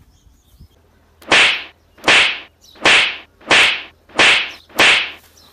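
Six identical whip-crack swishes, evenly spaced about two thirds of a second apart, each a sharp crack fading into a hiss. They are a dubbed fight sound effect standing in for blows.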